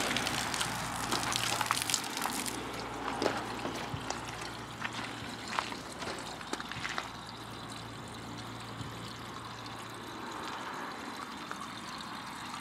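Water running from a garden-hose trigger nozzle into a car's coolant filler, topping up an engine cooling system that had run out of coolant. A steady rushing hiss with a few sharp clicks.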